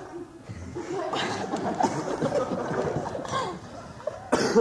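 Audience laughing and chuckling, with a short, sharp burst of noise near the end.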